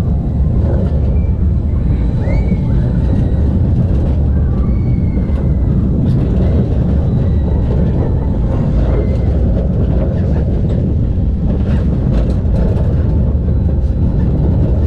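Family fairground ride in motion, heard from on board: a loud, steady low rumble with a few faint high squeals and voices over it.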